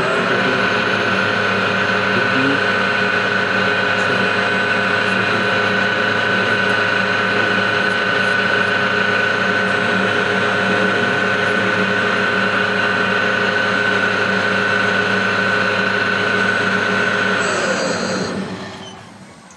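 15-ton overhead crane hoist motor and gearbox running under power: a steady high whine over a dense mechanical rattle, which winds down and stops about 18 seconds in. The noise comes from inside the hoist gearbox, not the motor coupling, by the mechanic's judgement.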